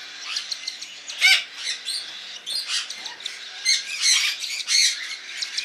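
Baby cockatiel chicks giving short, high, repeated begging squawks while being handfed with a syringe. One loud call comes about a second in, then a quick run of calls grows busier toward the end.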